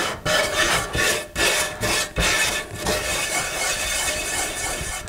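Half a potato scrubbing coarse salt around the inside of a cast iron skillet: a gritty, rasping rub in quick back-and-forth strokes, the salt working as an abrasive on baked-on residue.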